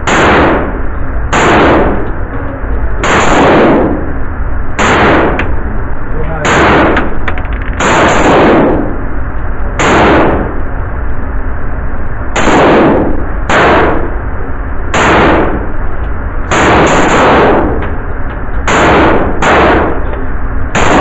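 Semi-automatic PPS-43 firing 7.62x25mm rounds as single shots, about fifteen in all at a slow, uneven pace of roughly one every one to two seconds, now and then two in quick succession. Each shot is followed by a short echo.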